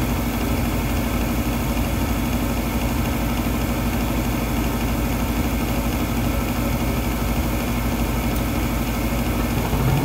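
Bryant gas furnace's fan motor running with a steady hum during its ventilation test before ignition, while the igniter glows; the gas burners light near the very end.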